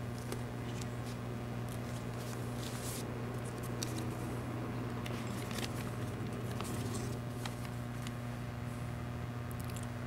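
Steady low hum that holds one pitch, with a higher hum above it, and faint scattered clicks and rustles.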